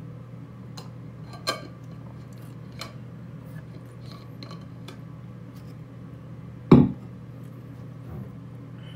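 Small clicks and knocks of a water bottle and its cap being handled after a drink, then one heavy thump about seven seconds in as the bottle is set down on a hard surface.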